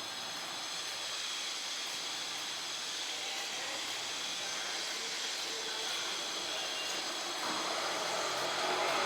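Sabudana vadas deep-frying in hot oil, a steady sizzle that grows fuller and louder from about seven and a half seconds in.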